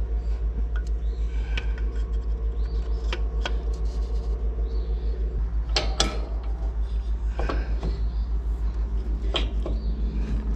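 Scattered sharp metal clinks and knocks of a bracket, nut and tools being handled while refitting the pump-belt drive hardware under a zero-turn mower. A steady low hum that pulses several times a second runs underneath.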